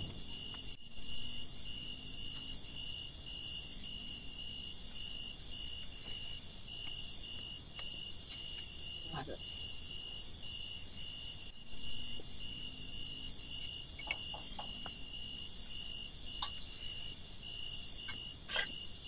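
Forest insects: a cricket-like chirp pulsing at a regular rate of somewhat under two a second, over a steady high-pitched insect drone. A few faint clicks, and one sharp click near the end.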